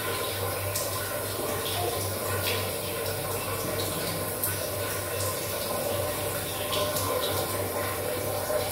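Steady rush of running water, as from a tap or a refilling cistern, in a small tiled washroom.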